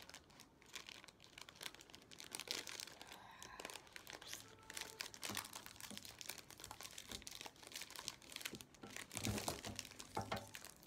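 Faint crinkling and rustling of a Feastables Crunch chocolate bar's plastic wrapper as it is handled, in an irregular run of small crackles.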